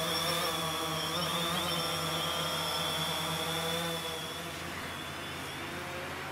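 DJI Phantom 3 quadcopter's motors and propellers humming as it hovers: a steady, many-toned drone with a high whine that wavers briefly about a second in. About four seconds in it turns quieter and thinner.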